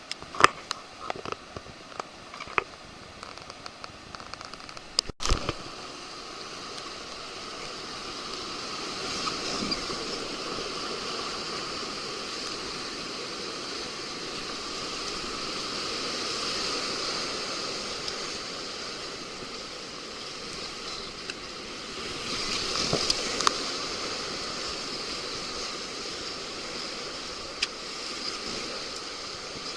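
Whitewater rushing on a river, swelling louder in the middle and again briefly later on. A few sharp knocks sound in the first five seconds.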